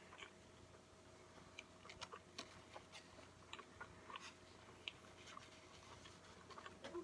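Faint chewing of a mouthful of burger with the mouth closed: soft, irregular wet clicks and smacks, over a faint steady hum.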